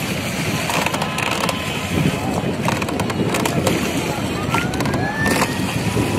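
Wooden rowing boat under oar: the bamboo oar knocking and creaking against the wooden boat with each stroke, over a steady din of river water and boat traffic.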